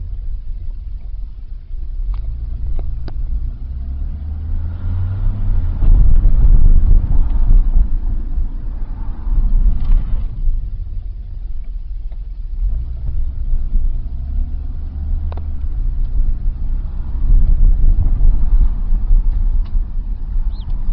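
2001 Nissan Sentra's 2.0-litre SR20 four-cylinder engine idling roughly, its sound swelling and sagging in slow waves every few seconds. The owner traced the rough idle to a weak mass airflow sensor.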